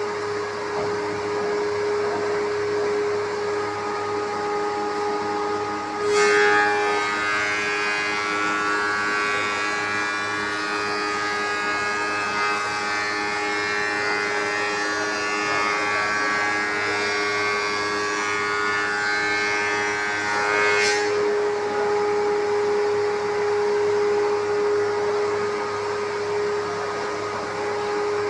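Spindle moulder running with a steady hum; from about six seconds in to about twenty-one seconds a pine plank is fed past the cutter, adding a louder, high-pitched cutting whine that stops suddenly when the board clears, leaving the idling hum.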